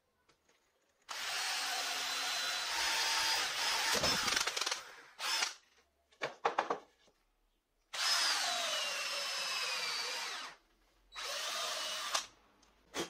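Power drill boring holes in wood: a Forstner bit cutting through plywood in one run of about four seconds, then short trigger blips, then a twist bit boring into a solid timber block in two shorter runs. The motor whine dips in pitch as the bit bites.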